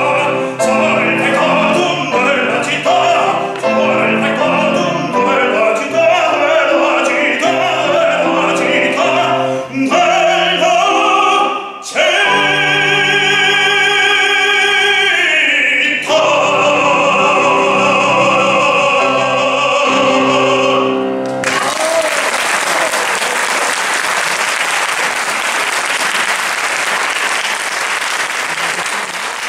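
Operatic baritone with a Steinway grand piano ending an aria: quick patter singing, then about twelve seconds in a long held note with vibrato and a final held note over piano chords. Audience applause breaks out about three-quarters of the way through and carries on.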